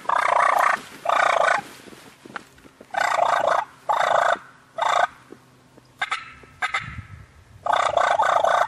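Wild turkey gobbles, loud and close: about six rattling gobbles in quick succession, mostly in pairs, with a couple of short sharp sounds in between.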